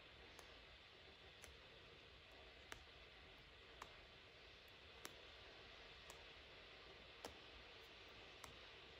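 Faint, sharp clicks about once a second as a seam ripper snaps through the stitches of a smocked fabric seam, over a low steady hiss.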